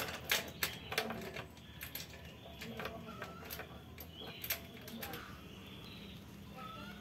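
Quiet background of short bird chirps and a handful of sharp clicks and taps. The clicks are the loudest sounds, bunched in the first second and a half and again around four seconds in.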